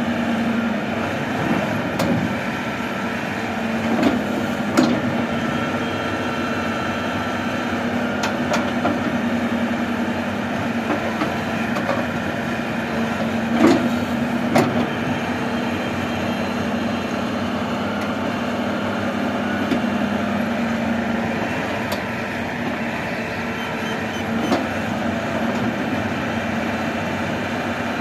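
Wheeled Hitachi excavator's diesel engine running steadily under hydraulic load as it digs soil and dumps it into a tractor trolley, with a few short clunks from the bucket and falling dirt.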